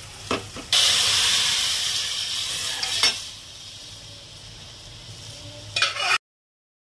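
Hot oil tempering of fried onions, chillies and curry leaves meeting boiled dal: a sudden loud sizzle about a second in that dies down over the next couple of seconds. A steel ladle clicks against the pot, and the sound cuts off abruptly near the end.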